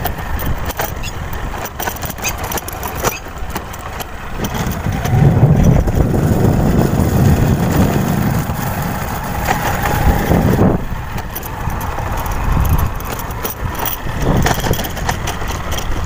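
Motorcycle riding over a rough brick-paved track: a continuous engine and road rumble with frequent knocks and rattles as the bike jolts over the bricks, louder from about five to ten seconds in.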